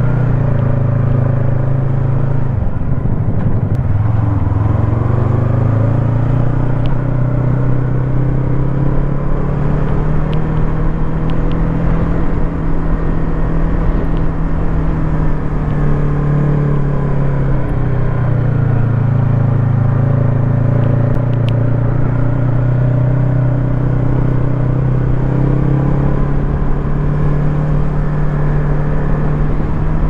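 Yamaha MT25's two-cylinder engine running under way as the bike is ridden, its pitch dipping and climbing again several times with throttle and gear changes, a big drop a few seconds in and another at about the eighteen-second mark.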